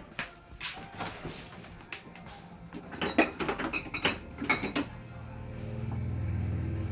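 Kitchen handling noise: clicks and knocks as things are moved on the counter, then a quick run of clinks and rattles as condiment bottles in a refrigerator door shelf are shifted about. A low steady hum swells in from about five seconds on.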